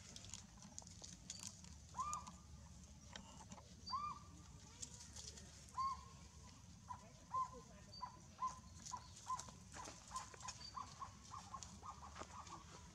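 Baby macaque whimpering in short, faint, clear cries. A few come spaced about two seconds apart, then a quicker run of them follows in the second half, over light rustling and clicks of dry leaves.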